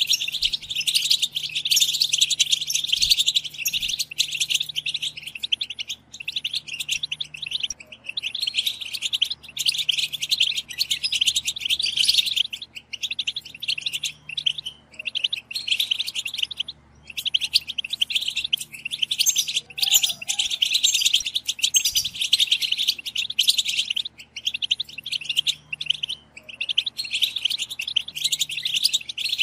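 A group of European goldfinches giving dense, rapid twittering chatter, the female goldfinch 'batbata' calls used to stir male goldfinches to sing. There are a few brief pauses, near the middle and again in the last third.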